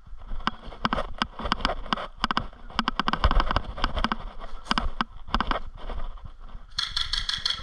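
Airsoft guns firing: scattered sharp clicks and snaps of single shots and short volleys. Near the end a fast, even burst of full-auto fire.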